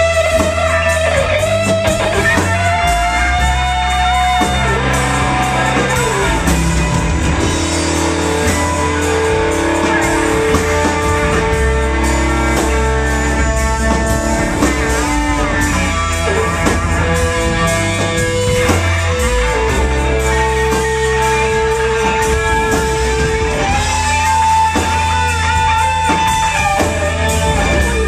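Live psychedelic space-rock band playing instrumentally: electric guitar holding long sustained, bending notes over a steady bass and drums.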